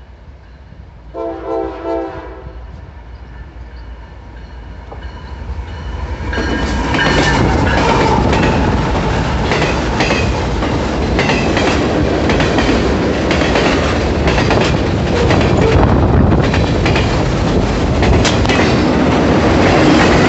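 A freight train's diesel locomotive sounds one short chord blast of its horn about a second in. From about six seconds in, the train passes close by: a loud, continuous rumble and rattle of the locomotive and the autorack freight cars, with repeated clicking of wheels over rail joints.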